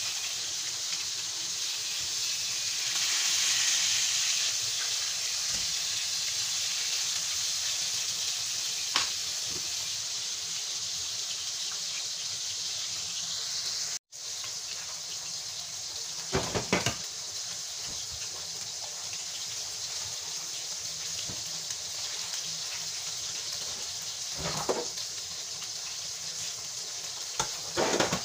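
Milkfish (bangus) pieces shallow-frying in hot oil in a pan: a steady sizzle with a few brief, louder crackles. The sound drops out for a moment about halfway through.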